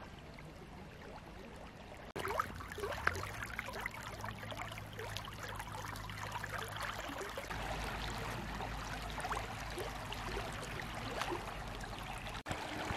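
Shallow river water running over pebbles, trickling and gurgling with many small splashes; it gets suddenly louder about two seconds in.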